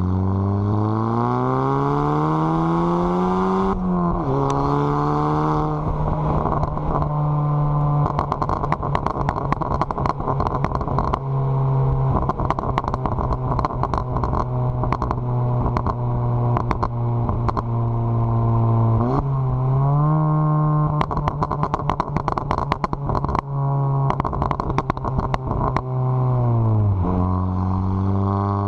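VW Mk7 Golf GTI's turbocharged 2.0-litre four-cylinder, Stage 2 tuned with a catless downpipe, pulling up through the revs, dropping at gear changes and holding steady between. Rapid bursts of crackles and pops from the exhaust come from its crackle-and-pop tune.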